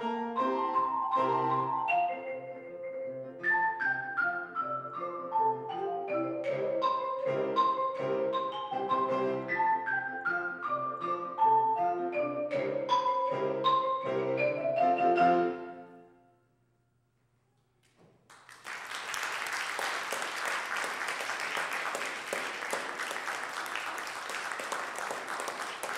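Marimba playing fast, rapid notes with piano accompaniment, including a descending run, until the piece ends about sixteen seconds in. After a pause of about two seconds, an audience applauds.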